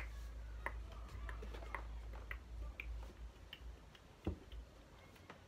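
Faint taps and clicks from a mobile phone being handled, roughly two a second, with one louder knock about four seconds in.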